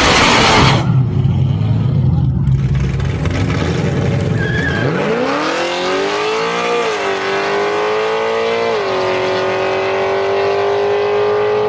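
Drag-racing car launching at full throttle: the engine note climbs steeply from about five seconds in, then drops back twice as it shifts up a gear and runs on high down the track. Just before it, a loud rush of noise cuts off abruptly under a second in.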